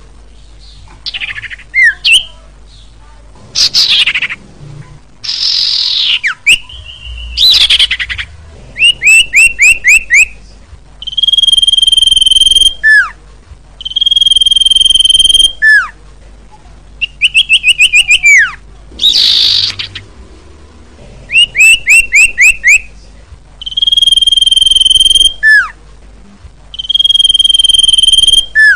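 Common iora (cipoh) singing loudly: long, level whistles that each drop sharply at the end, alternating with quick runs of four or five down-slurred whistled notes and a few harsh rasping notes. It is a lure recording played to attract wild ioras.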